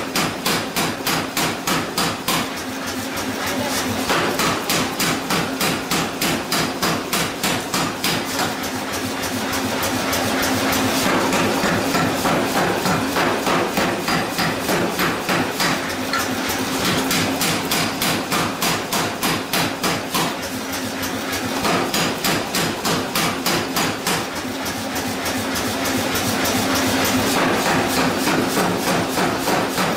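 Power hammer pounding a red-hot steel hammer-head blank in a steady, fast rhythm of about three blows a second, over a steady machine hum.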